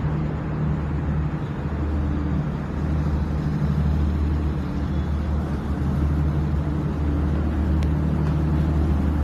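A motor running steadily with a low, even drone, and a single faint click near the end.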